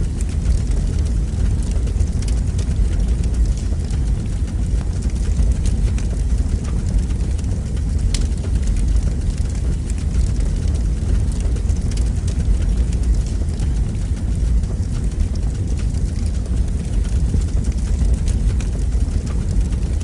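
Fire burning in a fireplace: a steady low rumble with a few sharp crackles now and then.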